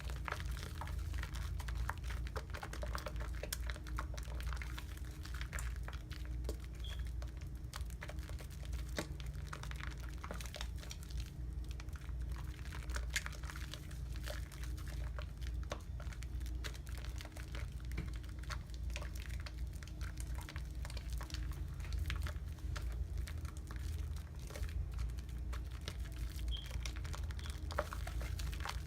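Soapy lather being worked with a blue mesh loofah and an Irish Spring bar: a dense, irregular wet crackling of fine clicks, over a steady low hum.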